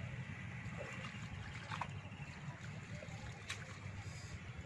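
River water trickling and sloshing as a fishing net is gathered and hauled through it by hand, over a steady low rumble.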